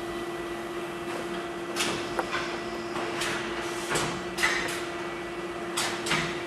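Metal top plate of a planetary floor grinder being lined up over its dowel pins: a series of short metallic scrapes and clunks at irregular intervals, over a steady hum.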